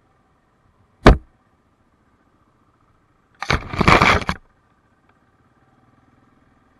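Tree branches and leaves scraping and crackling across the camera housing for about a second, after a single sharp knock against it about a second in. Between them only a faint, muffled hum of the ATV's engine.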